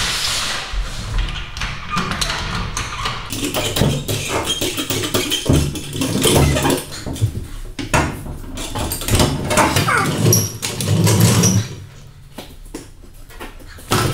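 Irregular metal clanks, knocks and scraping of tools and steel parts as the front crossmember of a Volvo 142, with its suspension arms and wheels, is worked loose and lowered off the car. The clatter dies down near the end.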